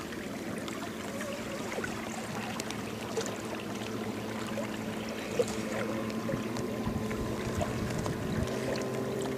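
Small sounds of an inflatable boat drifting on the water: light knocks and rustles on the hull, over a steady low hum.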